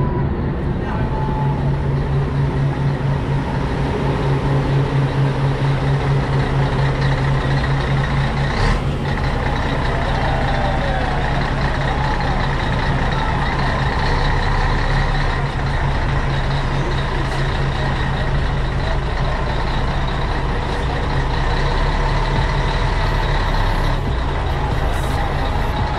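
Diesel engine of a vintage coach-style bus running as it pulls away at low speed, a steady engine note that is strongest in the first nine seconds or so.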